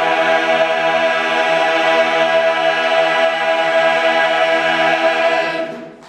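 Large men's barbershop chorus singing a cappella, holding a long final chord steady before it fades out near the end.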